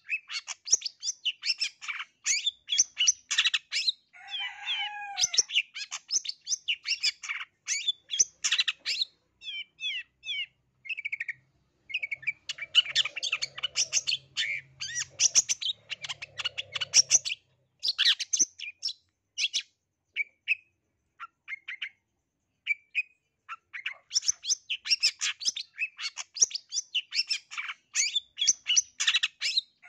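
Long-tailed shrike (cendet), black-capped 'blangkon' form, singing a fast chattering song of rapid short high notes, full of mimicked phrases. Twice the song thins to scattered single notes before picking up again, and a lower wavering call comes about four seconds in.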